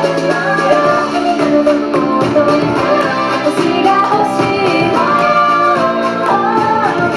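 Pop song played loud through a live venue's PA, with female vocals singing over the backing track.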